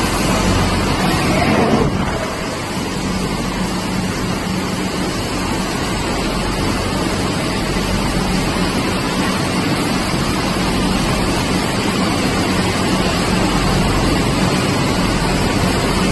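Two-lane sandwich biscuit machine running: a steady, even mechanical noise with a constant low hum.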